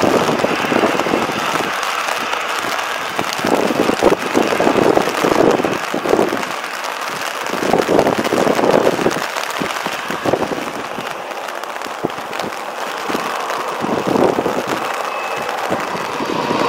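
Airbus A320-family airliner's jet engines at takeoff power: a rough, crackling roar that swells and fades irregularly.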